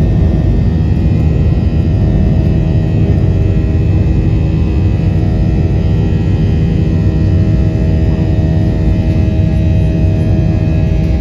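Airliner jet engines at takeoff thrust heard from inside the cabin during the initial climb: a loud, steady rumble with a cluster of steady whining tones over it.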